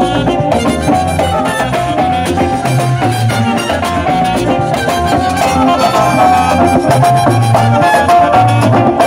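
Live Latin dance band playing loud through the stage PA speakers, with a repeating bass line and percussion.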